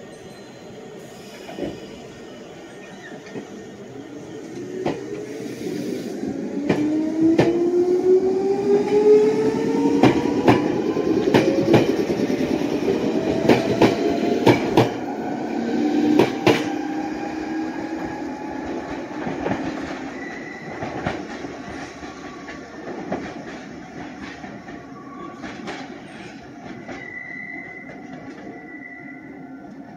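Red Meitetsu electric train pulling away from the platform and picking up speed. Its motors whine, rising in pitch as it accelerates, and its wheels click over the rail joints. The sound is loudest as the cars pass, then fades as the train goes off.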